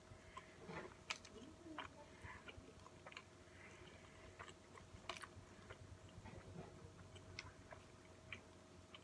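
A person chewing a mouthful of burger with the mouth closed: faint, irregular clicks, with a faint steady hum underneath.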